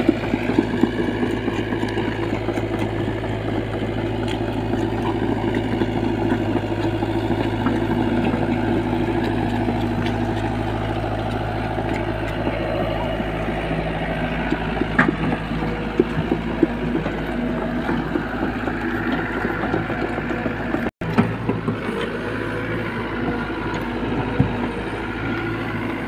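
SDLG crawler excavator's diesel engine running steadily, with a few sharp knocks.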